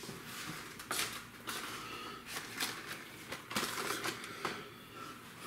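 Irregular crinkling and sharp clicks of a package being handled and opened by hand, most likely the refrigerated pie-crust package.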